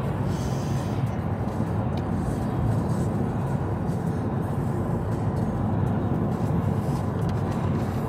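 Steady road and engine noise heard from inside the cabin of a moving car.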